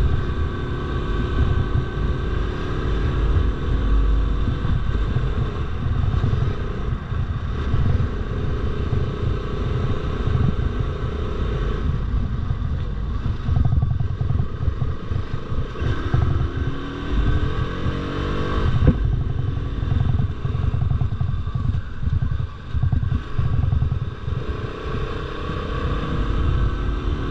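Bajaj Pulsar RS200's single-cylinder engine running as the bike climbs, its pitch rising and falling with the throttle and gear changes, heard under heavy wind rush on the microphone. There is one sharp knock about two-thirds through.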